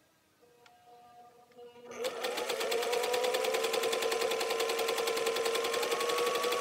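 Singer 500A sewing machine starting to sew. A faint hum comes first, then about two seconds in the machine comes up to speed, stitching fast with a steady motor whine over a rapid, even needle-and-feed clatter.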